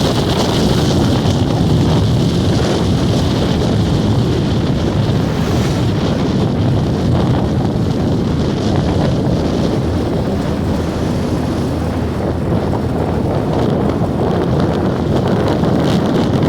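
Wind rushing over the microphone, with the steady running noise of a moving vehicle underneath, heaviest in the low end.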